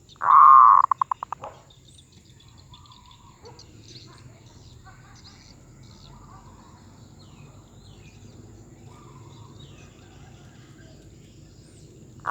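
Zebra dove (merbuk) calling once: a loud held coo followed by a quick fading run of short staccato notes, about a second and a half in all, over faint chirping from other birds or insects.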